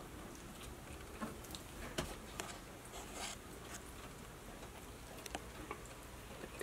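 Faint scattered clicks and light rustles from metal feeding tongs and raw chicken against the enclosure as a black-tail cribo strikes and takes the meat, with a brief rustle about three seconds in, over a low steady fan hum.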